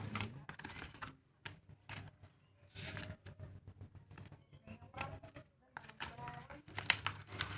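Scattered clicks, taps and rustling of a phone box's cardboard and paper contents being handled, with several sharper clicks near the end.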